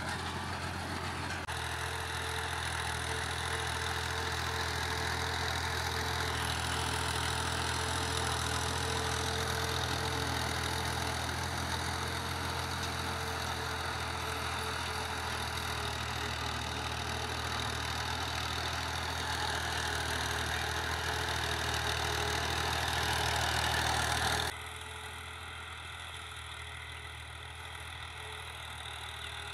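A farm tractor's diesel engine runs steadily under load while working a field. About four-fifths of the way through the sound cuts abruptly to a quieter, duller engine drone, heard from farther off.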